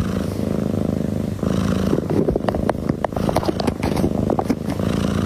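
A domestic cat purring steadily and loudly, with scattered light clicks over the purr.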